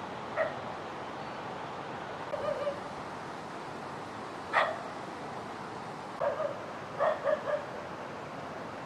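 Dog barking in short, separate barks over a steady background hiss. The loudest bark comes about halfway through, and a quick run of three comes near the end.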